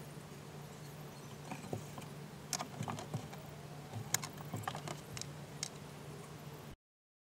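Scattered light clicks, taps and small rattles of gloved hands and tools working on the parts inside a BMW E46 door frame during a window regulator replacement, over a steady low hum. The sound cuts off abruptly to silence near the end.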